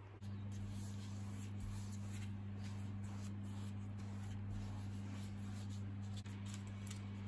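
A wide brush swept back and forth across a sheet of printmaking paper, wetting it with water: soft, irregular swishing strokes over a steady low electrical hum.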